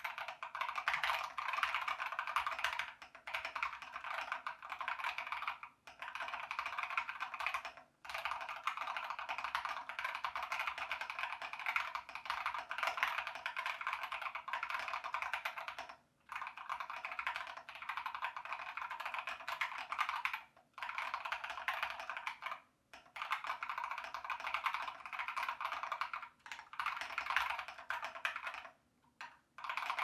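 Fast typing on a compact mechanical keyboard: a dense stream of keystroke clacks in runs of several seconds, broken by brief pauses.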